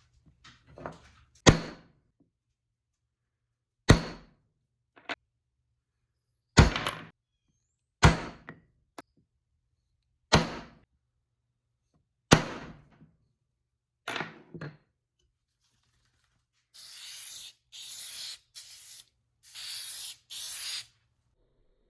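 A series of sharp knocks, about one every two seconds. Near the end come about five short hissing bursts from an aerosol spray can, which fits spray-on shellac being applied.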